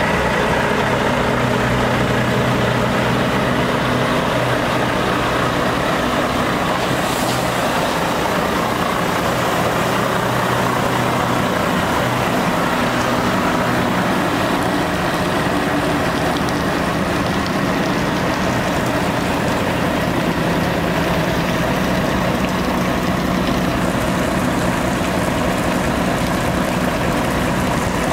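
Diesel engine of a Volvo FM tipper truck running steadily while the tipper body is raised, with a slight change in engine note about halfway through.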